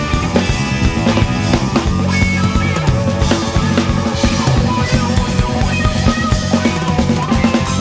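A guitar, a five-string electric bass and a drum kit playing together live, with busy drumming over sustained bass and guitar notes.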